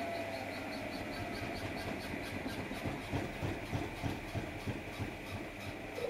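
Samsung Eco Bubble front-loading washing machine running a wash cycle: a steady motor hum with a faint high ticking about five times a second, and a run of soft thumps and swishes from about halfway through as the drum turns the wet load.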